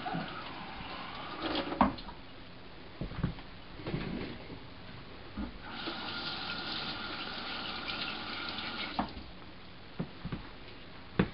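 Kitchen tap running into a stainless steel sink as a split geoduck siphon is rinsed of sand under it. The flow stops about two seconds in and runs again from about six to nine seconds, with a few short knocks in between.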